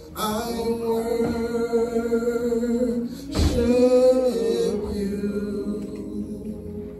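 A man singing a slow worship song into a handheld microphone, holding long drawn-out notes, with a short rush of noise into the microphone about halfway through.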